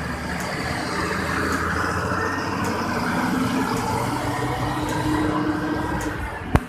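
Mercedes-Benz OH 1626 bus, a rear-engined six-cylinder diesel, pulling away from a standstill, its engine note climbing somewhat as it gathers speed. One sharp click comes just before the end.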